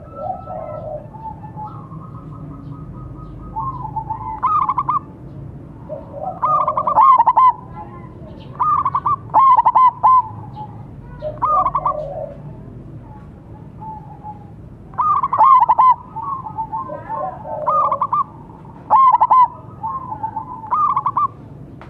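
Zebra doves (perkutut) cooing: a silver-coloured bird's song in short, warbling bursts, repeated every second or two with a few longer pauses, with a local perkutut also cooing in a duel.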